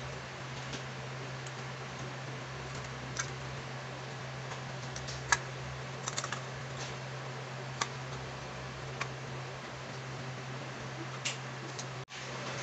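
Scattered light clicks and taps of a VW Beetle's metal reverse-light housing and bulb holder being handled, the sharpest about five seconds in and a quick run of several around six seconds, over a steady low hum and hiss.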